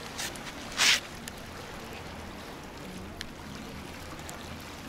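Calm sea water lapping against rocks and a concrete jetty, a steady soft wash, with a short loud rush about a second in.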